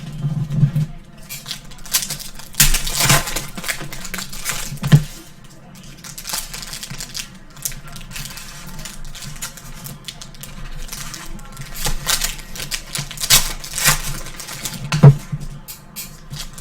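Clicking, scraping and crinkling of a pack of trading cards being handled and pried apart, its cards stuck together like a brick, with a few sharp knocks, the loudest about five and fifteen seconds in.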